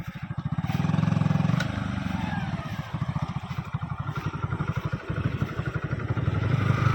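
Motorcycle engine running under way, its throttle rising about a second in and then rising and falling.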